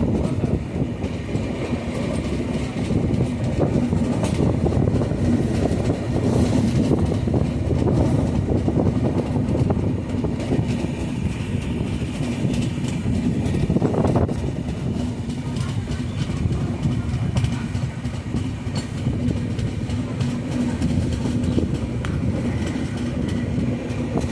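A moving train running steadily: a continuous rumble of wheels on the track with a steady hum and scattered clicks.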